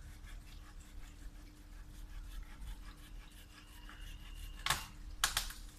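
Faint, rapid scraping against wood, followed by a few sharp knocks near the end.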